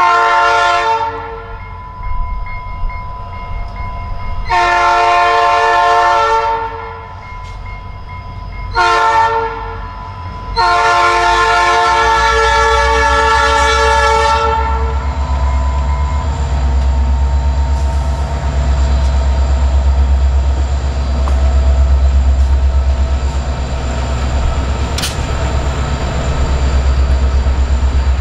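Diesel freight locomotive's multi-chime air horn blowing long, long, short, long, the signal for approaching a grade crossing. The locomotives then pass with a deep engine rumble, followed by covered grain hopper cars rolling by with a rhythmic wheel clatter.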